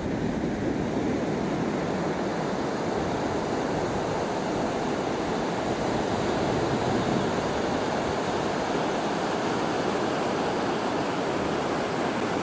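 Pacific Ocean surf breaking along a beach: a steady, even rush of waves, with some wind rumble on the microphone.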